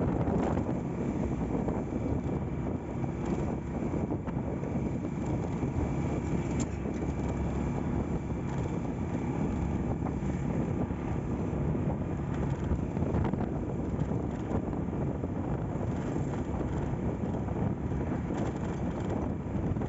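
Wind rushing over the microphone on a moving motorcycle, with a restored Honda Astrea Grand's small single-cylinder four-stroke engine running steadily underneath during a test ride.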